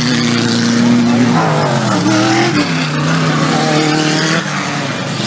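Engines of 4WD off-road race vehicles running hard on a dirt course, more than one engine note at a time, their pitch holding, dropping and rising again, over a steady rush of tyre and dirt noise.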